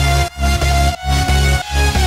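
Electronic dance music with a heavy bass and a steady beat, a long synth note held over it.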